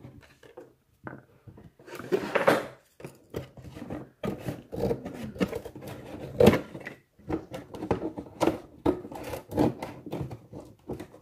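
Cardboard being handled and worked by hand on a desk: irregular scraping and rustling with many sharp knocks and clicks, the loudest about two and a half seconds in and again about six and a half seconds in.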